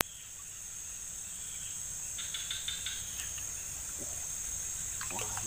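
Insects chirring steadily at a high pitch, with a short run of about five quick chirps a little after two seconds in.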